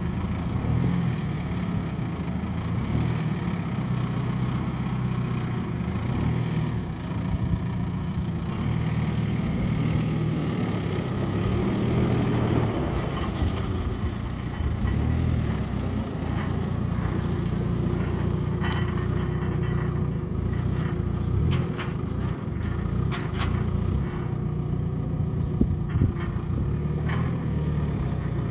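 JCB 526-56 Agri telehandler's diesel engine running as the machine drives and turns. A steady whine joins in the last third, along with a few sharp clacks.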